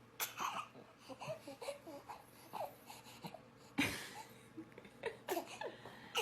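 Dog whining in a string of short, squeaky cries that rise and fall in pitch, the noise she makes when she is really hungry. About four seconds in comes one sharper, louder sudden sound.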